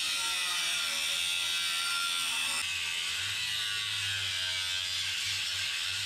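A small handheld power tool's motor running steadily, taking apart the shipping crate of a skid-steer hydraulic hammer attachment.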